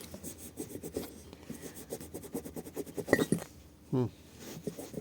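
Engine connecting rod being cleaned and handled by hand: irregular rubbing and scratching with light clicks.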